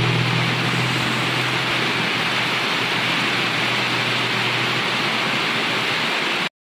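Steady rain hiss beside a highway, with the low hum of a passing vehicle fading away over the first few seconds. The sound cuts off abruptly near the end.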